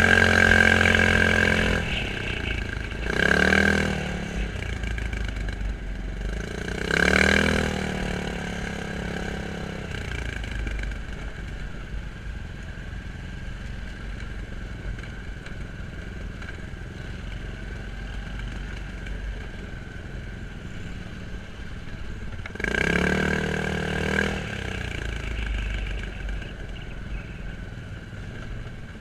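ATV engine running, revved briefly several times with the pitch rising and falling back each time, and one longer rev near the end.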